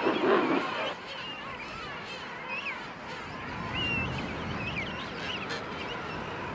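King penguin colony calling: a loud, harsh call close by in the first second, then many overlapping calls and short whistling glides from the crowd.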